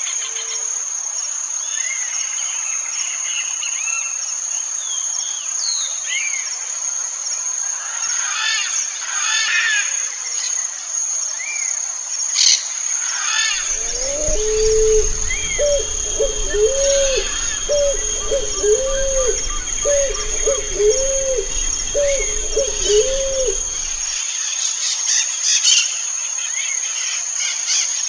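A dove cooing: a run of about nine low, arched coos, roughly one a second, beginning about halfway through and lasting some ten seconds, with a low rumble beneath them. A steady high insect whine and small birds' chirps run behind it throughout.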